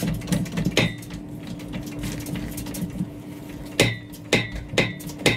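Hydraulic floor jack being pumped by its long steel handle to lift a boat trailer: sharp metallic clanks with a ringing note, about two a second near the end, over a steady low hum.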